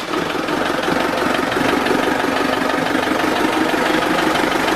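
Volvo Penta TMD22 four-cylinder turbo diesel idling steadily just after starting, heard close up through the open engine hatch.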